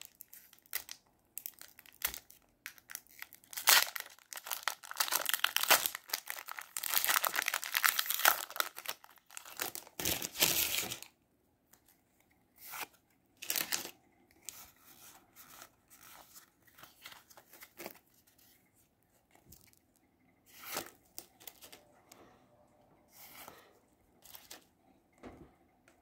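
Foil Pokémon booster pack wrapper being torn and crinkled open, a dense crackling rustle that stops abruptly about eleven seconds in. After that, scattered short soft swishes as trading cards are slid off the stack.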